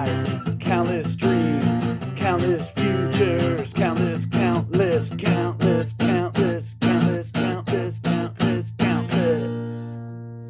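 Guitar strummed in a steady rhythm, about two strums a second, ending on a final chord that rings out and fades near the end.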